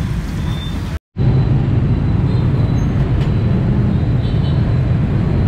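Steady rumble of street traffic with motorbikes. It cuts out for a moment about a second in, then goes on a little louder.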